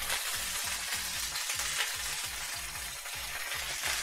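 Food frying in a hot pan, sizzling and spitting hard, with crackles throughout: the fat is spattering out of the pan.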